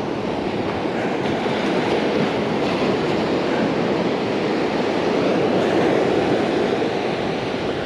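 Steady rushing noise of surf washing up the beach, mixed with wind on the microphone.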